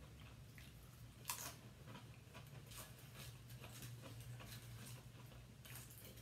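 Faint crunching of plain potato chips being chewed and handled: a string of irregular crisp clicks, with a sharper one about a second in, over a steady low hum.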